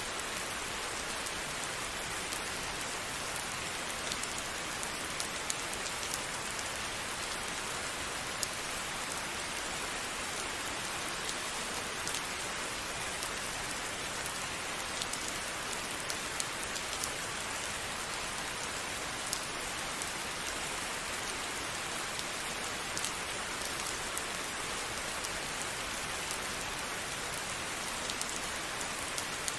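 Steady rain falling on a surface: an even hiss with many scattered, distinct drop taps, no thunder.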